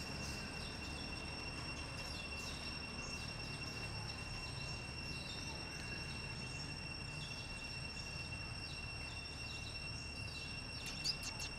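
Outdoor ambience: a steady high-pitched insect drone over a low background rumble, with faint scattered short chirps.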